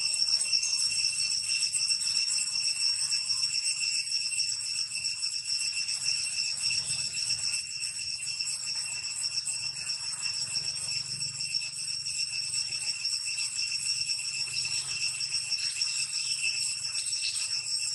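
Insects droning in a steady, shrill, high-pitched chorus that holds unchanged throughout.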